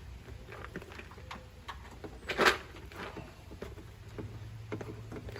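Small clicks and taps of parts being handled and fitted by hand, with one louder scrape or rustle about two and a half seconds in.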